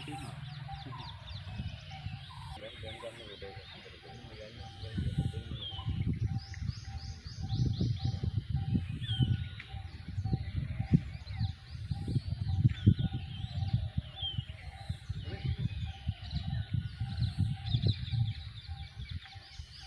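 Several birds chirping and trilling in short high calls throughout. From about five seconds in, a loud gusty low rumble of wind buffeting the microphone comes and goes over them.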